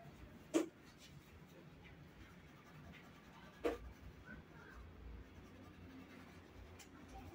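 Faint scratching of a drawing tool on paper, with two sharp taps, about half a second in and again near the middle.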